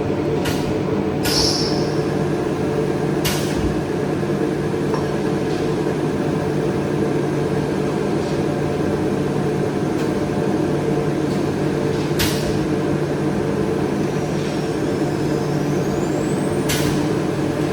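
Woodworking machinery in a cabinet factory running with a steady hum, with a few sharp clacks about half a second, a second and a half, three seconds, twelve seconds and seventeen seconds in.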